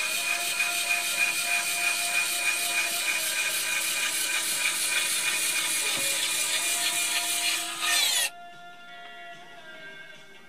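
The small electric motor and gearing of an RC dump truck's tipping mechanism run steadily with a gritty whirr as the tipper bed lowers. The sound stops abruptly about eight seconds in, as the bed comes down flat.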